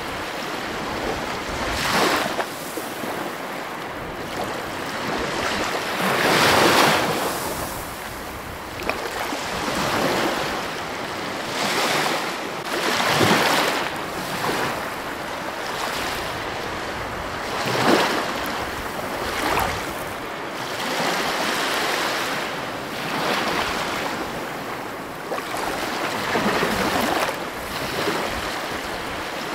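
Ocean surf: a steady rush of water that swells into louder wave crashes every few seconds.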